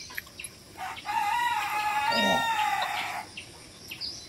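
A rooster crowing once: one long call of about two seconds that starts about a second in.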